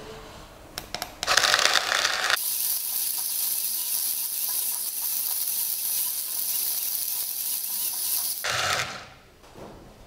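Electric coffee-bean grinder of a Beanque portable automatic coffee maker grinding a dose of beans. It starts about a second in, runs as a steady high hiss, and stops near the end.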